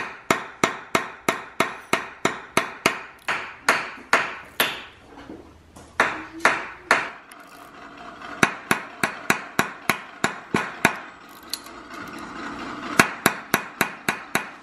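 Hammer tapping a steel wrench set on a screw extractor (easy out) in a broken bolt in an LS engine's cylinder head, the tap-and-back-out method for working the broken bolt loose. Quick, sharp metallic taps come about three or four a second, with a lull around the middle and two more runs after it.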